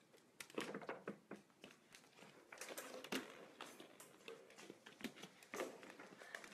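Light, irregular taps, clicks and brief scuffs: a fox terrier puppy moving about among hollow plastic ball-pit balls on a wooden floor.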